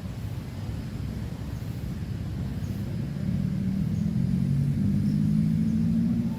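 An engine running with a low rumble. From about three seconds in it grows louder and its pitch rises a little.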